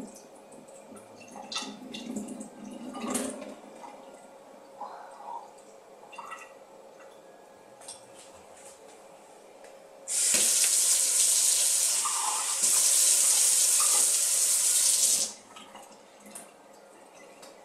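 Water running hard from a tap into a stainless-steel kitchen sink for about five seconds, starting about ten seconds in and stopping suddenly. Before it, a few light clicks and knocks of a plastic cup being handled.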